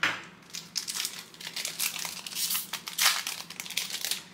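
Foil wrapper of a trading-card pack being torn open and crinkled by hand: a busy run of crackles and rustles, loudest at the start and again about three seconds in.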